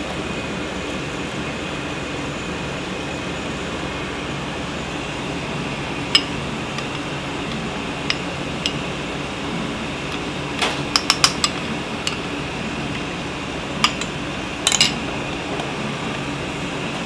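Metal ladle clinking against an aluminium stockpot as soup, thickened with cornstarch, is stirred: scattered single clinks, with quick runs of several about eleven and fifteen seconds in. A steady kitchen hum runs underneath.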